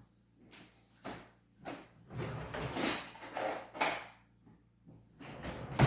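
Irregular knocks and clinks of hard objects being handled, with a longer, busier clatter about two to four seconds in.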